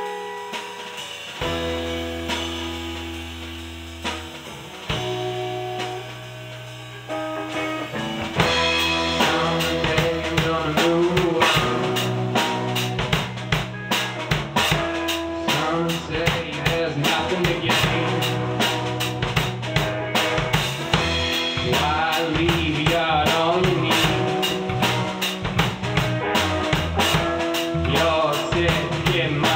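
Band music with electric guitars and a drum kit: a few ringing guitar chords with occasional hits for the first several seconds, then the full band comes in with a steady drum beat about eight seconds in.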